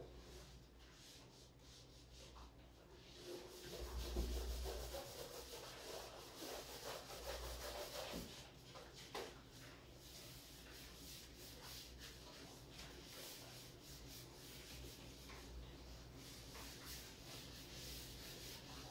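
Faint rubbing strokes of an eraser wiping a writing board, starting about three seconds in, with a low bump about four seconds in.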